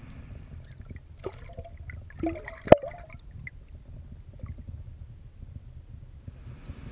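Water lapping with a low steady rumble, broken by a few short sounds and one sharp knock about two and a half seconds in.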